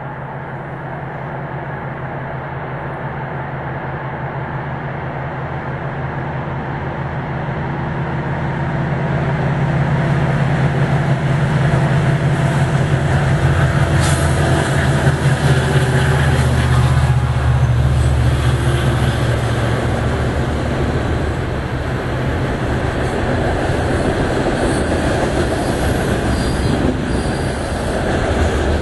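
HO-scale model train running on the layout track: a steady motor hum with wheel noise on the rails, growing louder over the first ten seconds or so as it comes close.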